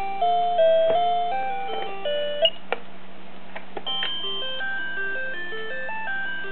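Electronic baby toy (Animal Fun House) playing simple beeping tunes through its small speaker: one melody ends about two and a half seconds in with two sharp clicks, then a new tune starts, a held high note over a stepping bass line.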